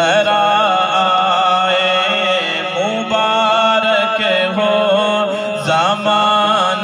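Male voice singing an Urdu naat (devotional kalam) into a microphone, holding long wavering melismatic notes without words, over a steady hummed drone from a second voice.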